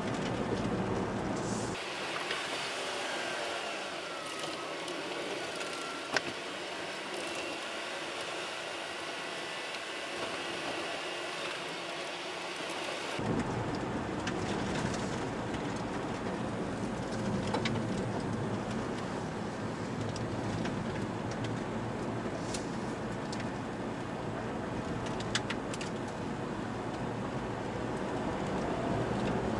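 A car on the road, heard from inside: steady road and engine noise with a few faint clicks. About two seconds in the low rumble drops away and the sound thins out, then it comes back about thirteen seconds in.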